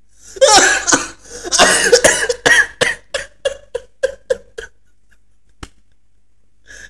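A man laughing hard: a loud burst of laughter that breaks into a run of short, rhythmic ha-ha pulses, about three a second, and stops a little past halfway.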